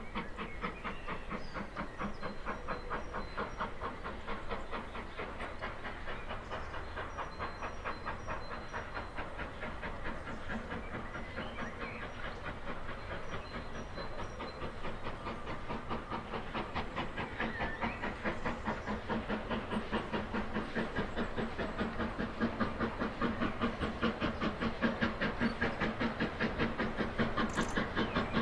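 BR Standard Class 9F 2-10-0 steam locomotive 92203 "Black Prince" working under steam, its chimney exhaust beating in a steady rhythm over a hiss of steam, growing louder as it approaches.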